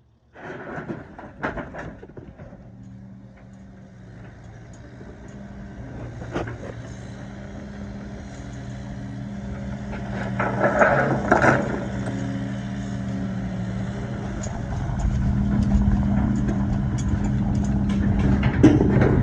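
Heavy equipment engine running steadily and growing louder, with scattered knocks and clatters, a burst of loud clattering about ten to twelve seconds in.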